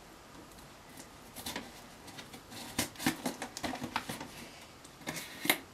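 Scissors cutting into a cardboard parcel box: a run of short, scratchy snips and rustles beginning about a second in, with the sharpest snip near the end.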